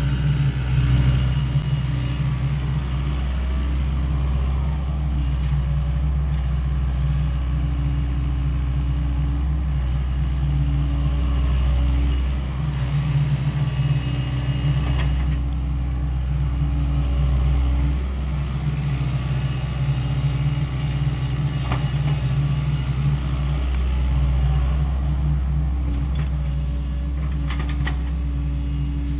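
Sany SY75 mini excavator's diesel engine running steadily, its level swelling and easing every few seconds as the machine works under hydraulic load. A few faint sharp knocks are heard in the second half.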